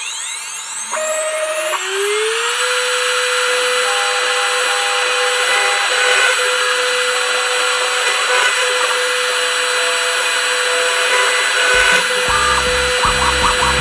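Spindle motor of a home-made CNC machine starting up, its whine rising in pitch over about two seconds and then running steady at speed. About twelve seconds in, a lower, rougher noise with a regular ticking joins as the cutter begins on the aluminium number-plate blank.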